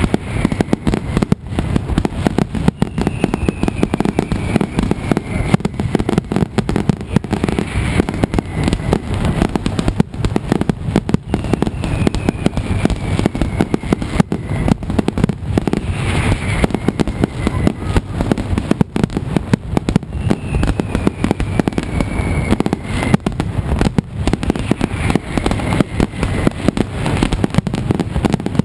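Mascletà: a loud, continuous, rapid string of firecracker bangs. Several whistles fall in pitch through it.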